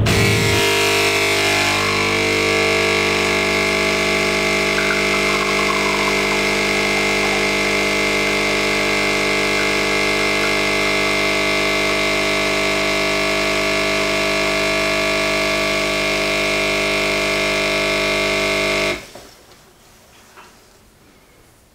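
Home espresso machine's pump buzzing steadily while pulling a shot, cutting off abruptly about 19 seconds in as the shot ends.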